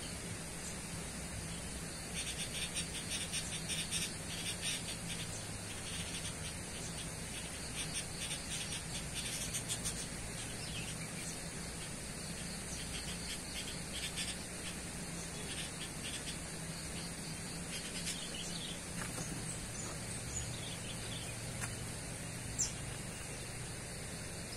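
Insects chirring steadily in a high pitch, with a stretch of rapid, clicky chirping from about two to ten seconds in.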